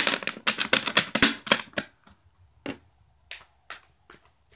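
A tarot deck being shuffled by hand: a quick run of card edges flicking and slapping together for about two seconds, then a few separate soft taps of cards about half a second apart.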